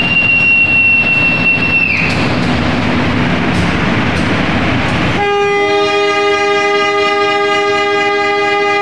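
Passenger train rolling past the platform as it pulls out, carriages rumbling by. A single high steady whistle tone stops about two seconds in. About five seconds in the locomotive sounds a long horn blast of several notes together, held to the end.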